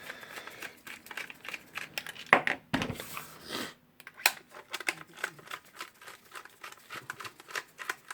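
Irregular clicks, taps and clatter of hand tools and small metal parts being handled while screws are worked out of a rotary hammer drill's housing, with a short scraping rustle about three seconds in.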